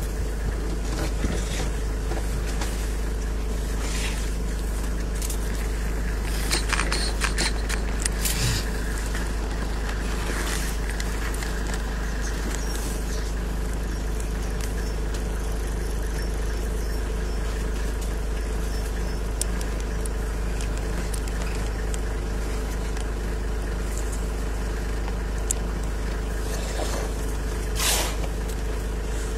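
Safari vehicle's engine idling steadily, with a few short rustles and knocks over it, the loudest near the end.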